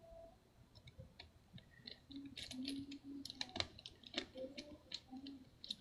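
Small screwdriver turning screws into a laptop's display hinges: a few faint clicks at first, then a dense, irregular run of small metallic ticks and clicks from about two seconds in.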